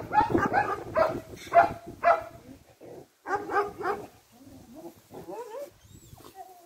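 Dogs barking at play: a rapid string of loud, short barks for about four seconds, then quieter yips and whines with rising and falling pitch near the end.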